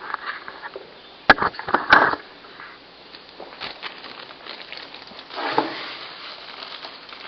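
Parts being handled by hand: a quick cluster of sharp knocks and clatter about a second and a half in, then a short stretch of rustling.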